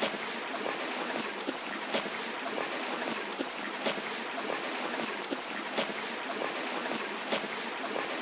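River water rushing steadily through a woodland.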